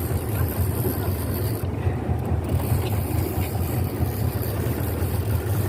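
A small fishing boat's motor running steadily at low speed, a constant low hum, with wind noise on the microphone.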